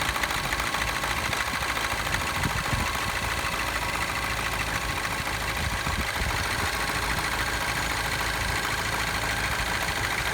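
Citroen DS3 1.6 THP turbocharged four-cylinder engine idling steadily with a fast metallic timing chain rattle: the sign of a failed chain tensioner.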